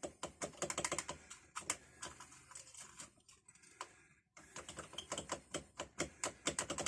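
Key being worked back and forth in a rusted, seized padlock: rapid small metallic clicks and rattles, pausing briefly a little past halfway. The old mechanism is stiff but beginning to give.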